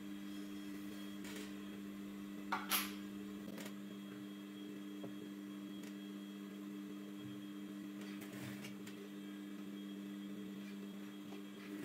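A steady low electrical hum, with a short sharp rustle about two and a half seconds in and a few faint handling noises later as cloth is moved about.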